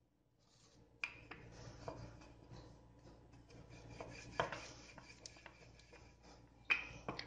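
Wooden rolling pin rolling out paratha dough on a flour-dusted wooden worktop. A rough rubbing is heard as the pin is pushed back and forth, with a few light knocks. It starts about a second in.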